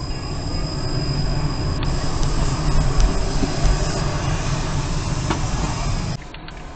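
Hyundai Solaris driving, heard from inside the cabin: a steady low rumble of engine and road noise. The sound drops suddenly near the end.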